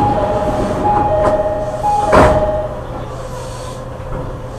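Train door chime: a two-note high-then-low ding-dong, played three times, with a knock just as it starts and a louder thump about two seconds in as the doors move. A steady low hum runs underneath.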